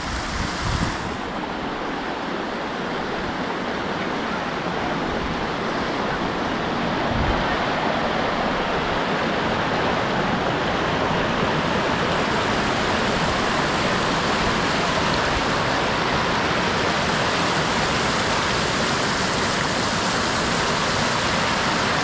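Shallow rocky stream rushing in rapids below road culvert pipes: a steady rush of water. It grows louder over the first seven or eight seconds, then holds.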